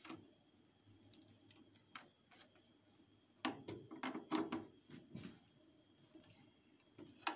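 Scattered light clicks and rattles as a 25 mm flexible copper battery cable in a corrugated plastic sleeve is handled and its copper lug fitted to the inverter's positive battery terminal. A denser run of clicks and rustling comes about three and a half to five seconds in, and a sharper click near the end.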